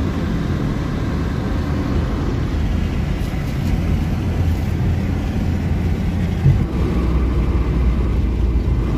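Car driving at road speed, heard from inside the cabin: a steady low rumble of engine and tyre noise, with one short bump about six and a half seconds in.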